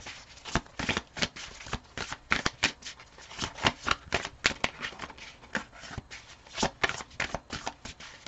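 A deck of tarot cards shuffled by hand: a run of irregular, sharp card snaps and slides, a few a second.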